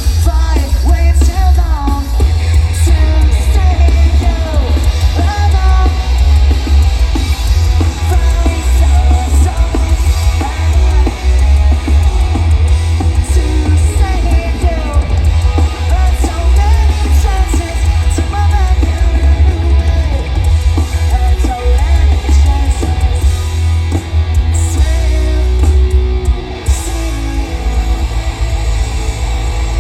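Pop-punk band playing live: amplified electric guitars, a pounding drum kit and sung vocals over a heavy, booming bass.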